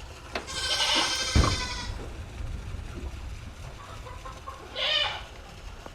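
A goat bleating: one long call about half a second in and a shorter one near five seconds, with a single thump during the first call.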